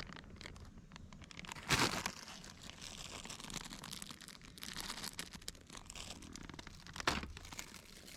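Crinkly material being handled: irregular rustling and crinkling, with two louder knocks, one about two seconds in and one near the end.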